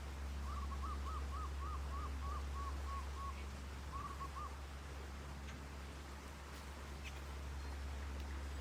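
A bird calling: a quick run of about nine short, clear notes that drop slightly in pitch and fade at the end, followed a second later by three more, over a steady low rumble.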